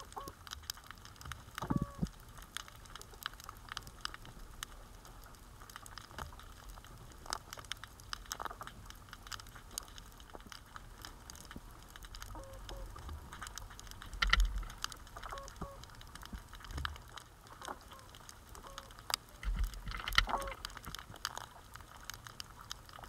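Underwater sound picked up by a submerged camera: scattered sharp clicks and crackles, with a few louder low thumps about two seconds in, around the middle and near the end.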